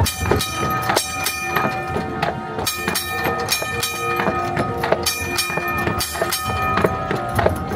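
Horse-drawn streetcar rolling along its rails: the steel wheels give a steady high-pitched squeal against the track, over a running clatter of wheels and hooves.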